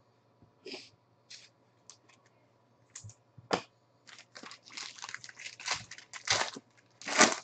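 Foil wrapper of a trading-card pack crinkled and torn open by hand: a few scattered light handling sounds, then a dense run of crackling rustles from about halfway through, loudest near the end.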